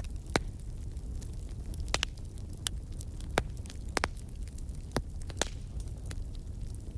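Wood fire crackling in a fireplace: irregular sharp pops and snaps over a low, steady rumble of the burning fire.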